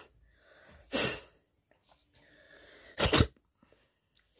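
A person sneezing: a breathy burst about a second in, then a louder sneeze about three seconds in.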